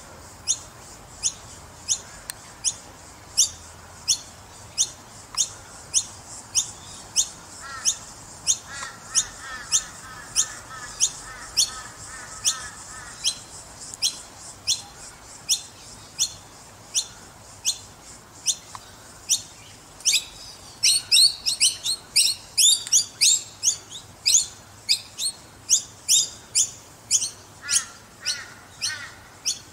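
Fledgling noisy miners calling with short, sharp, high-pitched chirps, repeated about one and a half times a second. A quick flurry of overlapping calls comes about two-thirds of the way in.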